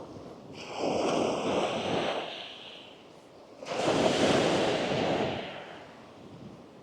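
Two small waves breaking and washing up the sand, one after the other: each rises to a rushing hiss and fades away.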